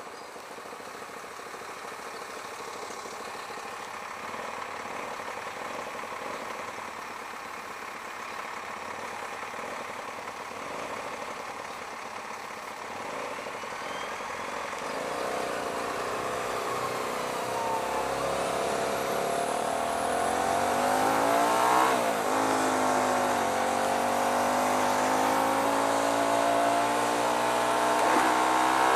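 Hyosung GT125R motorcycle's 125 cc V-twin engine heard on board, quiet at first while rolling slowly, then accelerating from about halfway through: the revs climb, fall with a gear change, then climb again, with another shift near the end.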